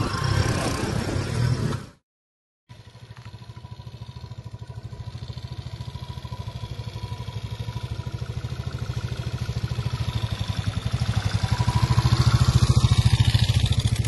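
Motorcycle engines running with a steady rhythmic pulse, growing louder as the bikes ride closer on a muddy dirt track. One of them is a Yamaha FZ-S. The sound cuts out completely for a moment about two seconds in.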